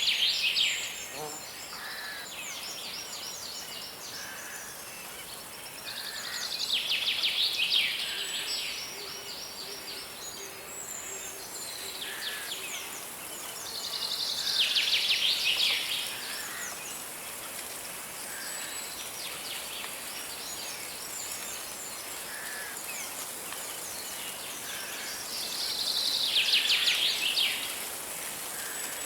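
Woodland birdsong: one bird sings a loud, rapid trilled phrase four times, each lasting about two seconds, with softer chirps from other birds between. Underneath is the steady hiss of flowing river water.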